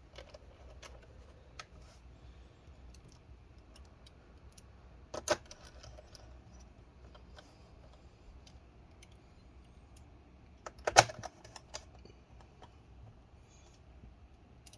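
Scattered small clicks and taps of screws and a screwdriver working on a laptop's plastic bottom cover, with a sharper click about five seconds in and a quick cluster of louder clicks a little before the end.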